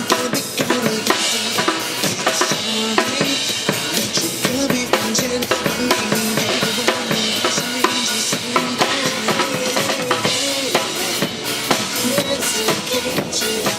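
Live band music with the drum kit prominent, keeping a steady beat over the other instruments.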